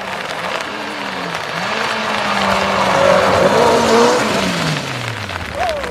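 Rally car's engine at high revs coming up a wet gravel stage, with brief throttle lifts about a second in. It passes close and loudest around three to four seconds in, then its note drops away as it goes by.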